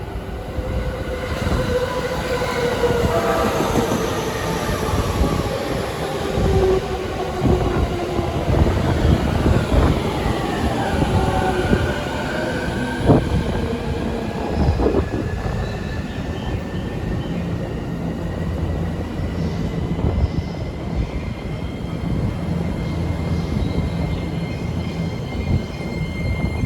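Electric train running, its traction motors whining in several tones that glide downward, then one tone climbing slowly and steadily through the second half, over a steady wheel-on-rail rumble with a few sharp clicks.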